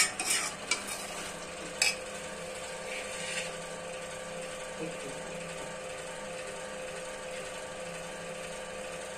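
Steel ladle stirring thick gravy in a metal kadhai, scraping and clinking against the pan a few times in the first two seconds. After that only a steady low hum remains.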